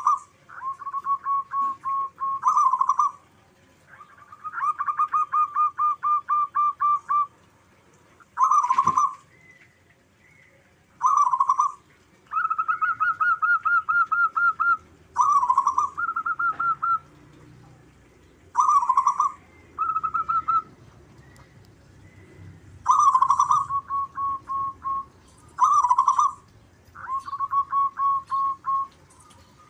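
Zebra doves (perkutut) singing in turn. Each phrase opens with a loud cooing note and runs into a fast string of short coos, about five a second. Phrases at two slightly different pitches alternate, two birds answering each other.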